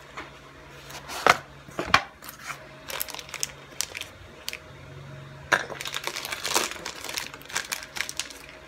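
Two sharp knocks, then the crinkling and rustling of a wrapper being handled and opened on a block of cheese, growing denser in the second half.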